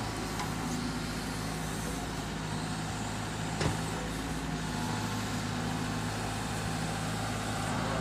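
Diesel engine of a SANY wheeled excavator running steadily under load while it digs, with one brief knock about three and a half seconds in.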